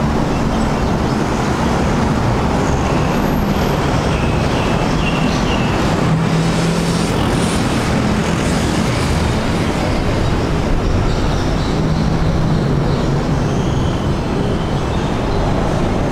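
Steady, loud rumble of road traffic with a low engine hum, continuous and unbroken. A few faint high chirps come about four to five seconds in.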